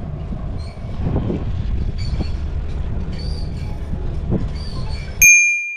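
A steady low outdoor rumble with a few faint soft knocks and small high chirps. About five seconds in, a single bright bell-like ding, the loudest sound here, rings briefly and fades, like an editing transition effect.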